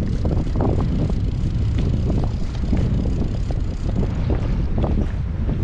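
Strong storm wind buffeting the microphone in a steady low rumble, with faint splashing of rough sea around a kayak.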